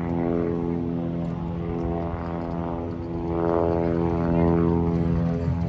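Two propeller aircraft flying past overhead, their engines and propellers making a steady drone that grows louder about three and a half seconds in.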